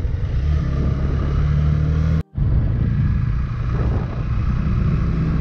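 TVS Apache RTR 4V motorcycle's single-cylinder engine running steadily while riding. The sound cuts out for an instant a little over two seconds in.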